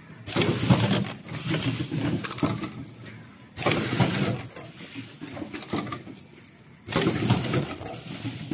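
Automatic cup-shaped mask headband welding machine running: a loud mechanical clatter of the conveyor fixtures and actuators that starts up abruptly three times, with two brief high-pitched squeals.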